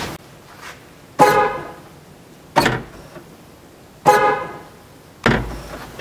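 Chrysler Town & Country minivan's horn beeping twice, about three seconds apart: the chirp that confirms the power door locks have been locked. A sharp click comes between the two beeps, and a dull thump comes near the end.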